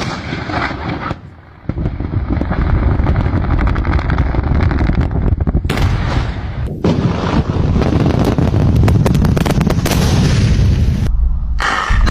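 Explosive blasting at a coal mine: a continuous deep rumble with dense crackling. The sound is broken by a few abrupt cuts between shots.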